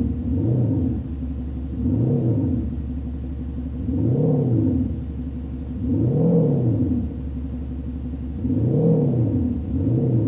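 Diesel Porsche's engine note through a Cargraphic Active Sound exhaust sound generator: a low idle drone that swells up and falls back in pitch five times, like repeated throttle blips.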